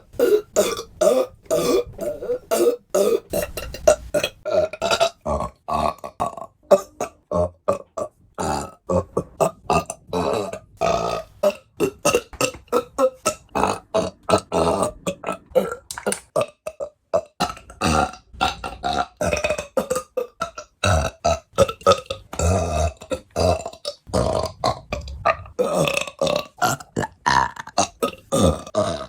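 A woman burping over and over: dozens of short belches in quick succession with brief gaps between them.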